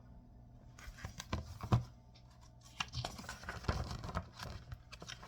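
Pages of a picture book being turned by hand: paper rustling with small handling taps, in two spells, one starting about a second in and another from about three seconds in.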